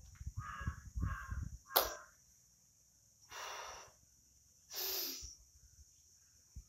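A crow cawing twice in quick succession, then a sharp click, followed by two short breathy hisses about a second and a half apart.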